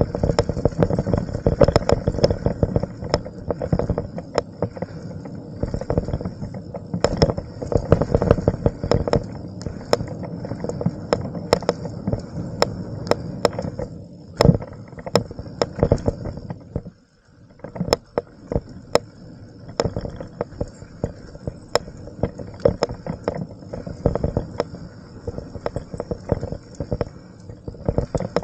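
Mountain bike riding fast down a dirt flow trail: tyres rolling over dirt with a constant rattle of clicks and knocks from the bike over bumps and berms, under a faint steady high whine. About two-thirds of the way through it drops briefly to near quiet, then the rolling and rattling resume.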